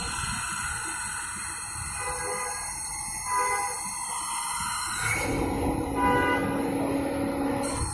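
CNC machining center running a drilling program, with steady machine whine made of several sustained tones that switch abruptly about five seconds in and again near the end as the machine changes motion.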